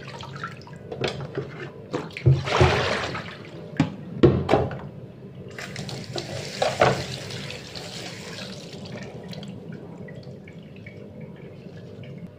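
Hands swishing and splashing spring onion leaves and herbs in a plastic basin of water in a stainless steel sink. About five seconds in, a steady rush of running water lasts a few seconds, then fades to faint dripping and handling sounds.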